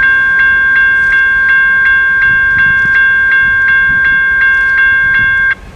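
General Signals Type 1 electronic crossing bell ringing at about three strokes a second, then cutting off suddenly near the end as the crossing signals shut off after the train has cleared.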